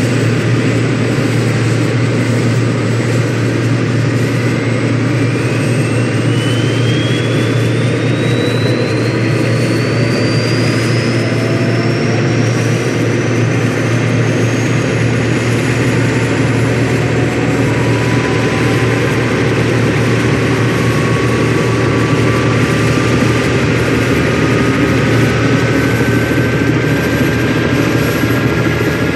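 Helicopter turbine engine starting up: a steady low hum under a whine that rises slowly in pitch over the first ten seconds or so, with more slowly climbing tones joining in later as it spools up.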